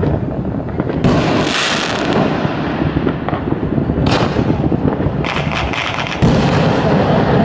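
Many fireworks going off at once: a continuous crackle and rumble of bursts, with sharper bangs about one and four seconds in, and a louder one that starts suddenly just after six seconds in.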